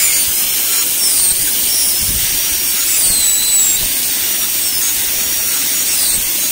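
High-speed air-turbine dental handpiece running with water spray, its bur reducing the incisal edge of a model central incisor: a high whine over a steady hiss, the pitch sagging and recovering a few times as the bur bites.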